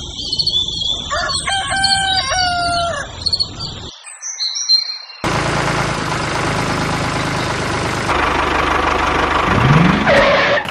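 A rooster crowing with birds chirping, then a gap, and about five seconds in a steady motor running noise starts suddenly as the mini toy tractor drives.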